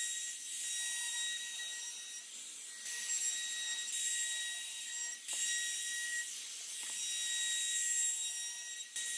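Compact trim router running at full speed and routing the edge of a wooden board: a steady high whine with cutting noise that swells and dips as the bit moves along the edge.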